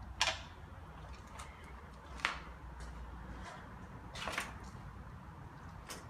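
Four sharp clicks or knocks about two seconds apart over a low steady rumble; the first is the loudest and the third comes as a quick double.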